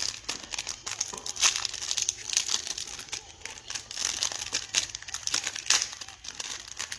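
Foil trading-card pack wrapper crinkling and rustling as hands work the pack open and pull the cards out, in an irregular run of crackles.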